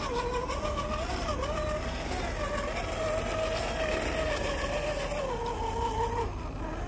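Electric motor and gear drivetrain of a 1/10-scale RC rock crawler whining as it crawls over rock, the pitch wavering up and down with the throttle. The whine drops lower about five seconds in and stops about six seconds in.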